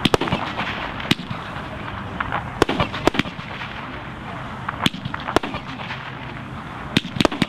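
Acid Rain firework cake firing its shots: a series of sharp bangs roughly one every second or two, with a quick cluster of three near the end, over a steady background noise.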